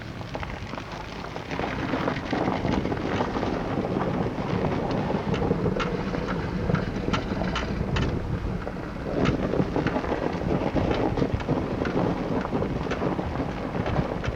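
Wind buffeting a camcorder microphone: a rough, rumbling noise that swells after a second or two, with scattered small clicks and crackles.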